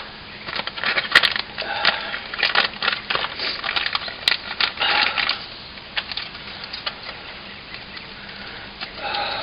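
Brisk clicking and rattling of small metal brake pad clips and their packaging being handled and unpacked, busiest in the first half, then only light handling noise.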